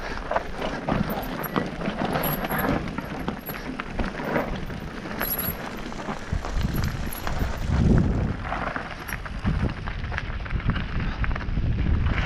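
Mountain bike ridden over rough, rocky trail: tyres crunching and the bike rattling with many small knocks, while wind buffets the microphone with a low rumble.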